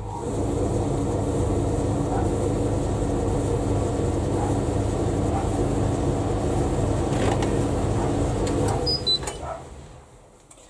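Indesit IVL85SD tumble dryer running, its motor, fan and drum making a steady hum and rumble. About nine seconds in there are two short beeps and the machine runs down and stops.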